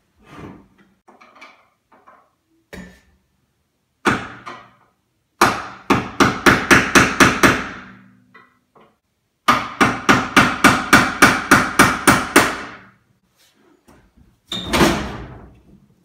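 Hammer driving a screwdriver against a stuck nail, used as a punch to knock the nail aside and free the microwave trim. The blows come in two quick runs of about ten strikes each, roughly four a second, with a single strike before them and another near the end.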